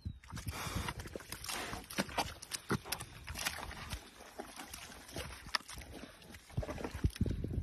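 Pig wallowing and rooting in a waterlogged mud hole: irregular wet squelches, slaps and splashes of mud and water, with the pig grunting now and then.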